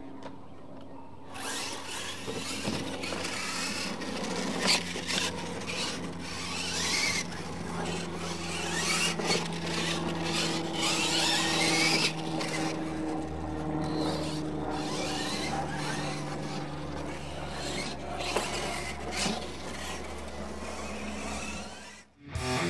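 Electric Losi LMT radio-controlled monster trucks racing on a dirt track: the motors whine, rising and falling with the throttle, with tyres scrabbling on dirt and frequent knocks from landings and bumps. It starts about a second in, as the race gets under way, and cuts off just before the end.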